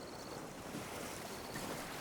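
Calm sea waves lapping at the shore: a steady, even wash of water with no distinct break.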